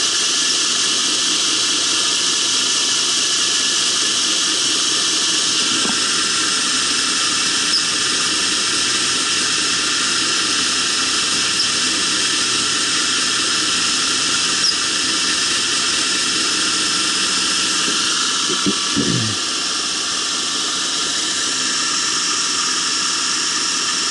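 Belt grinder running steadily, its abrasive belt spinning over the wheels on the prototype center-pivot tracking assembly with a steady whine and hiss. A short falling sweep comes near the end, after which it runs slightly quieter.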